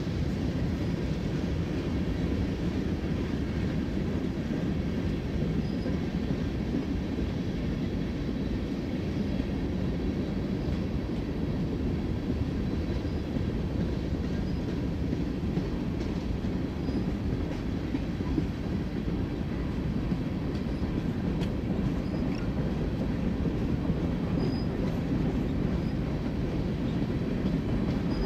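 Freight cars of a BNSF mixed freight train rolling past: a steady low rumble of steel wheels on rail.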